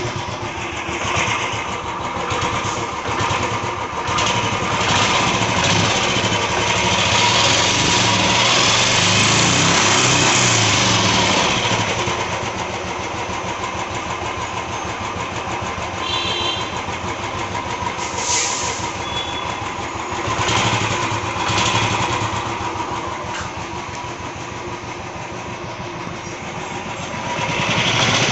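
Royal Enfield UCE Electra's single-cylinder engine running, revved up and back down a few times between stretches of idling. It has the engine noise that the mechanic points out.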